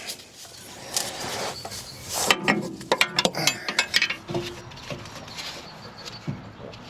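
Wrench clicking and clanking on a tractor's steering hydraulic hose fitting as it is worked to break the joint free: a run of short metallic clicks and knocks, busiest in the middle, with a brief squeak.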